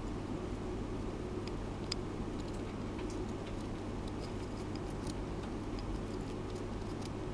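Scattered faint clicks and crackles, a few a second, from a hamster gnawing at a cotton swab, over a steady low hum.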